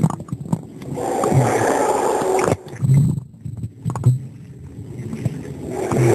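Muffled swimming-pool water sound picked up by a camera held under water: sloshing and bubbling with repeated low thumps, dipping quieter about two and a half seconds in.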